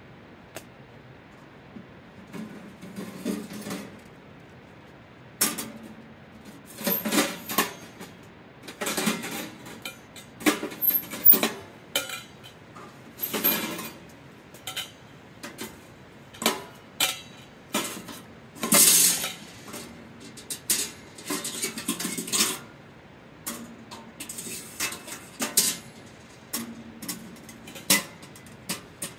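Metal stove pipe sections clinking, scraping and clattering as they are slid out of a small portable wood stove's firebox and set down, in irregular bursts with short pauses between.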